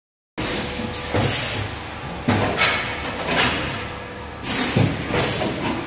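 REI-22VG vacuum gas tray sealer running through its filling and sealing cycle, starting suddenly about a third of a second in. Repeated short rushes of air and mechanical clunks sound over a steady machine hum.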